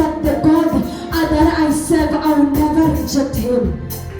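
Voices singing a gospel praise-and-worship song over musical accompaniment, with long held notes.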